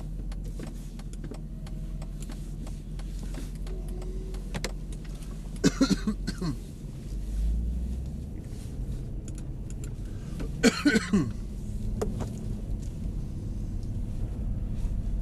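Mercedes-Benz SL63 AMG's 6.3-litre V8 running at low, steady revs, heard from inside the cabin as the car moves. Two short loud bursts of sound come about six and eleven seconds in.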